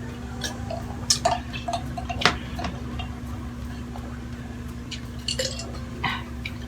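Spoon and fork clinking and scraping against plates in irregular sharp clicks while eating, over a steady low hum.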